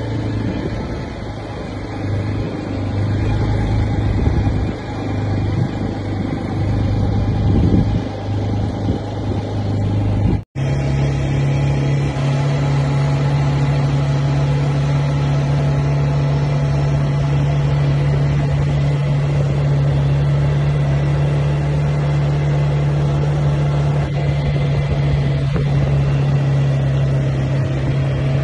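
ATV quad-bike engine running steadily while riding. The sound breaks off for an instant about ten seconds in and resumes with the engine hum at a slightly higher, steady pitch.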